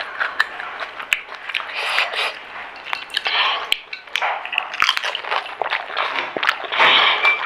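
Crunching and chewing as crisp panipuri shells are bitten: a run of sharp crackles and short wet bursts close to the microphone.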